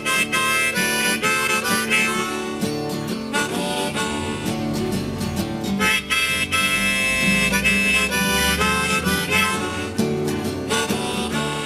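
Blues harmonica playing an instrumental solo over a guitar accompaniment, in phrases of chord-like notes. It is a break between sung verses of a country blues song.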